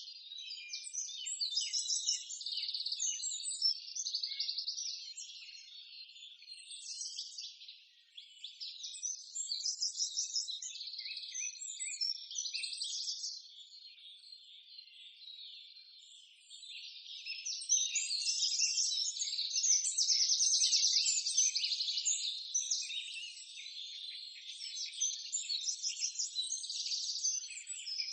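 Forest wildlife chorus: dense, high-pitched chirping and trilling that swells and fades in waves and is loudest a little past the middle.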